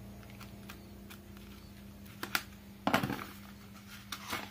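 A small cardboard packet of bullet bomb firecrackers being cut open with a box cutter and handled: scattered clicks and taps, with a short burst of scraping and rustling about three seconds in and another near the end. A steady low hum runs underneath.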